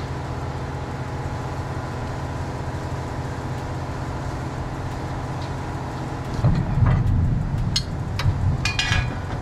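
A steady low mechanical hum runs throughout. About six seconds in, a louder rumble joins it, with several sharp metallic clinks and clanks of hand tools near the end.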